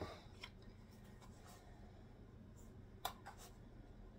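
Near silence: room tone, with a few faint light clicks, one about half a second in and two close together around three seconds in.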